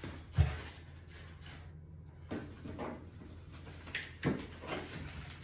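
Packed parts being handled inside a plywood shipping crate: a sharp wooden knock about half a second in and a softer one near the end, between scattered rustles of plastic wrapping and foam packing.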